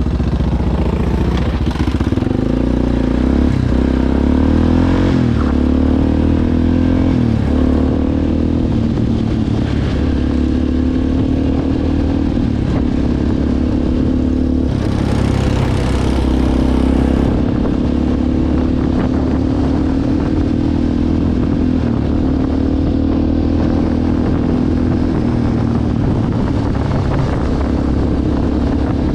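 ATV engine running under way, its pitch rising and falling with the throttle over the first several seconds, then holding steadier. A brief rush of noise comes about fifteen seconds in.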